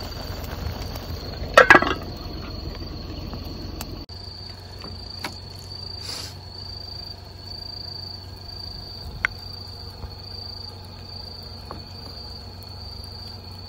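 Crickets chirping in a steady high trill, with one brief loud knock about two seconds in and a few faint clicks later as a metal spoon scoops cooked rice out of a split bamboo tube.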